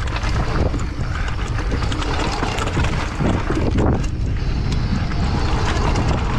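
Wind rush on the microphone with the clatter of a mountain bike riding down a dirt trail: a steady rumble of tyres over the ground, broken by many small knocks and rattles from the bike over bumps.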